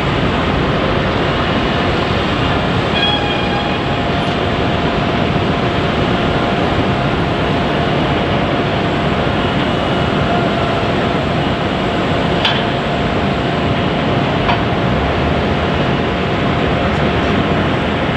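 Jet airliner engines running steadily at close range, an even, loud rush with a faint steady whine through the middle and no rise or fall.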